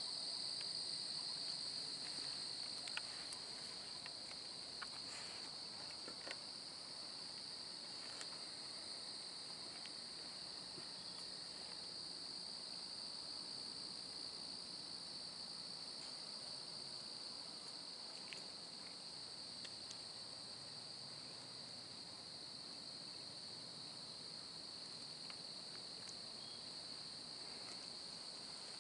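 Steady night chorus of insects such as crickets, a continuous high-pitched trill that does not let up, with a few faint clicks in the first few seconds.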